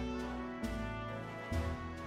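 Background music with sustained chords that change about every second.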